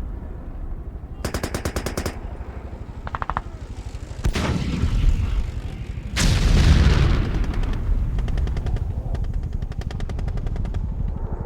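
Battlefield sound effect: rapid machine-gun bursts and rifle fire, with two heavier blasts about four and six seconds in, over a continuous low rumble.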